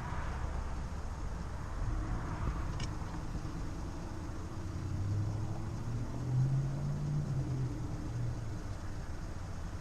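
Car engine idling, heard from inside the cabin: a steady low rumble, with a low hum that swells between about five and eight seconds in.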